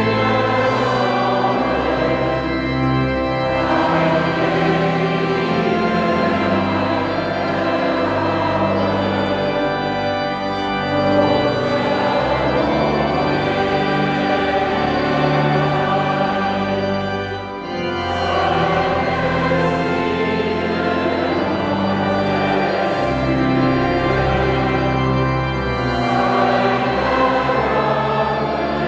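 Church organ accompanying voices singing a hymn in slow, held notes, with a brief break between phrases partway through.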